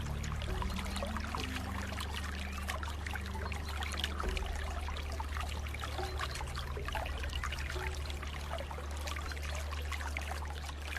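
Water trickling and splashing steadily, with many small splashes and no pauses, over a steady low hum.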